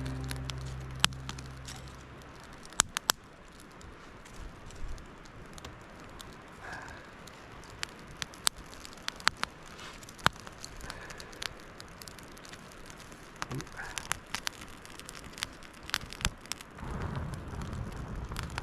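A small birch-bark and feather-stick campfire crackling, with irregular sharp pops and snaps as the damp wood catches. Background music fades out in the first two seconds.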